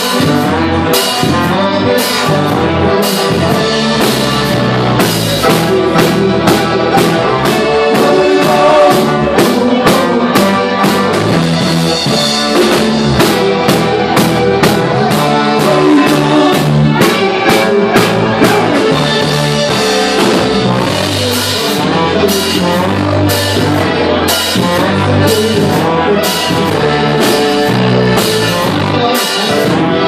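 Live rock band playing a song: electric guitar, keyboard and drum kit keeping a steady beat, with a man singing.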